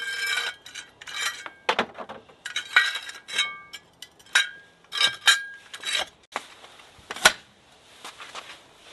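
Fastway One Step metal wheel chock clinking and rattling as its handle is worked to spread it between tandem trailer tires and lock it in place, a run of sharp metallic clicks, some with a brief ring, with one sharp clank about seven seconds in.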